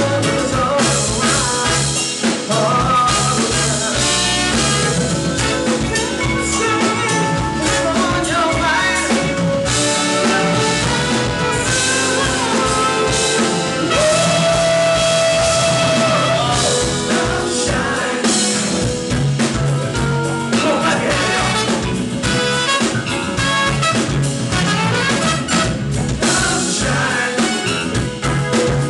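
Loud band music with singing over drums, with one long held note about halfway through.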